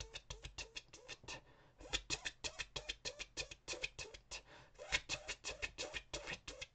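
A person imitating a helicopter's rotor blades with the mouth: a fast, even chopping pulse, about seven beats a second, broken briefly twice, near 2 s and 4.5 s in.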